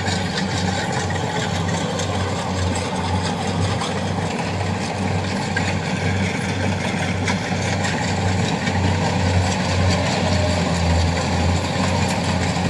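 Kubota DC70 Plus combine harvester's diesel engine running steadily with a low throb, growing slightly louder as the machine approaches. It is labouring in sticky mud that loads the engine heavily.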